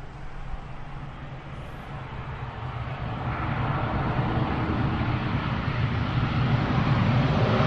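Airplane engine noise: a low rumble with a broad rushing sound, growing steadily louder throughout.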